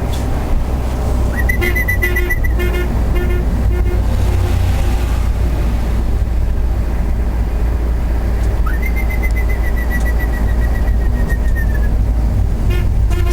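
Steady low rumble of a running vehicle, with two long, high, whistle-like tones that rise quickly and then hold: a short one about a second in and a longer one starting about nine seconds in.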